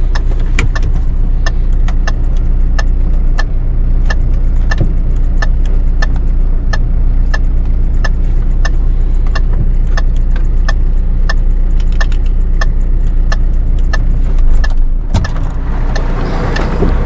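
Fire truck engine running steadily, with a sharp regular ticking about twice a second over it. About fifteen seconds in, the ticking stops and a rushing noise swells.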